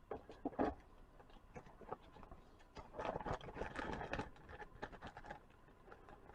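Faint light clicks, then a short run of scratchy scraping about three seconds in: a blade tool trimming the burr off a polypropylene disc in a lathe.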